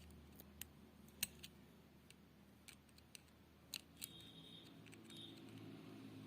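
Faint, scattered small clicks and ticks from handling a Speakon speaker connector while the wire in its +1 terminal is tightened, with two brief faint squeaks about four and five seconds in.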